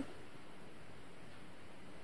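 Quiet room tone: a faint, steady hiss with no distinct sound.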